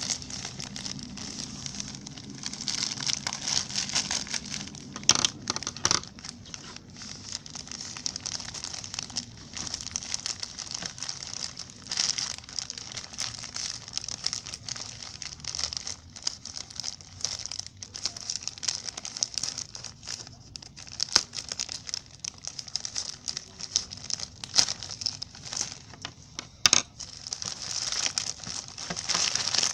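A delivered package's wrapping being cut and torn open with scissors and by hand. It crinkles and rustles throughout, with many scattered sharp clicks and crackles.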